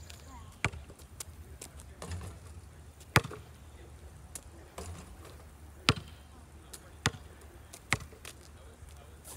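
A basketball bouncing on an asphalt driveway: separate sharp thuds a second or more apart, the loudest about three seconds in and about six seconds in.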